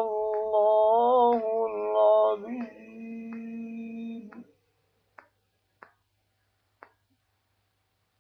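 A man's voice chanting Quran recitation in the melodic tajwid style, holding long wavering notes that end about four and a half seconds in. A few faint clicks follow.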